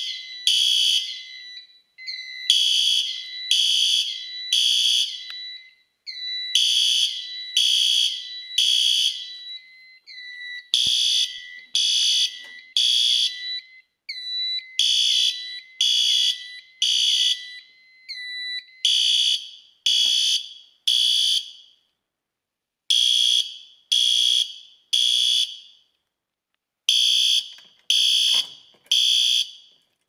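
System Sensor P2WP horn strobe sounding in the temporal-3 pattern: three short blasts about a second apart, then a pause, repeating every four seconds. It is the agent alarm of a CO2 release pull station, the signal that the suppression agent is about to release or already has.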